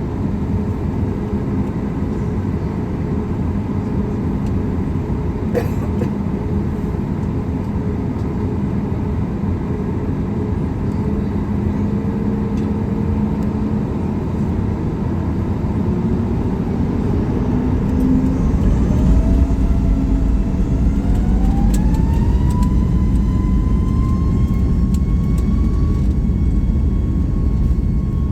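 Boeing 737 MAX 8's CFM LEAP-1B turbofans heard from inside the cabin, running at idle with a steady hum. About 16 seconds in they spool up for takeoff: a whine rises and levels off a few seconds later, while a deep rumble grows louder as takeoff thrust builds.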